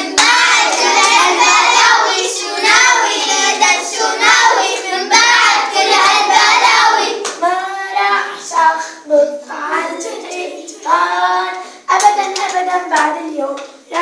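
Children singing an Arabic children's song, with some hand claps. The singing is dense and continuous for the first half, then breaks into shorter separate phrases with brief gaps.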